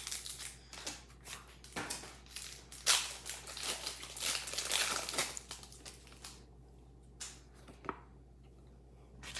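Foil Pokémon booster pack wrapper crinkling and being torn open, in irregular rustles that die down after about six seconds, leaving a couple of light clicks.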